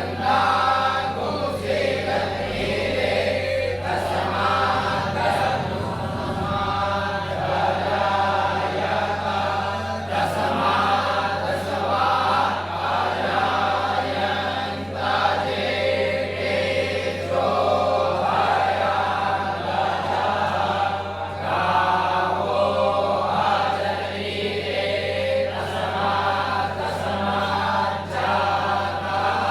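A group of voices chanting Hindu mantras together in a continuous, steady recitation over a constant low hum.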